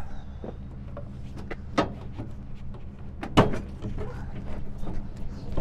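Nissan NV 1500's underslung spare-tire winch being cranked down with a speed tool: a run of small clicks and knocks, with two sharp metallic clanks about two seconds and three and a half seconds in. A steady low hum lies underneath.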